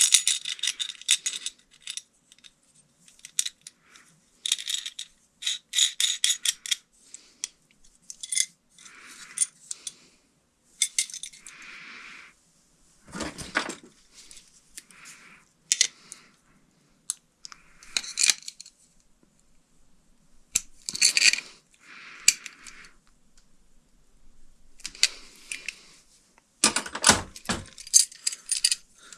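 Small metal hardware being handled: irregular clinks, jangles and scrapes, with a few louder knocks about thirteen seconds in and again near the end.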